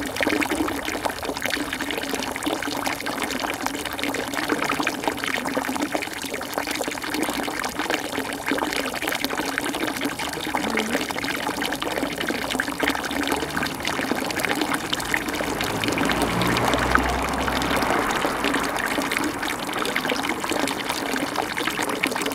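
Steady rush of running water, even and continuous, with a low rumble swelling briefly about two-thirds of the way in.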